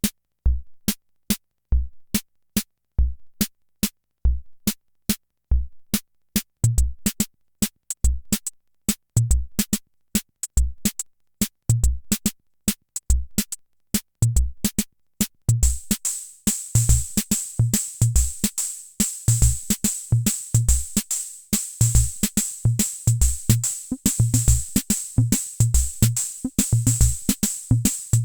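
Hammond Auto-Vari 64 analog rhythm machine playing a preset beat: steady low bass-drum thumps under sharp, ticking clicks. About six seconds in, a second, higher drum joins the pattern. From about halfway through, a hissing cymbal-like layer plays on top.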